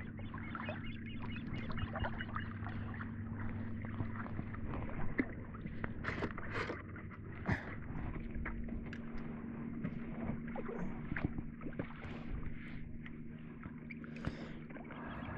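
Steady low hum of a fishing boat's motor running slowly, its lower pitch shifting about four seconds in, with scattered clicks and knocks over it.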